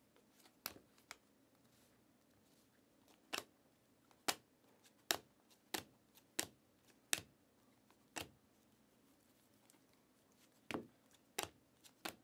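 Glossy chromium trading cards being flicked one by one off the front of a stack, each card giving a sharp click: about a dozen clicks at an uneven pace, roughly one a second, with a short pause before the last few.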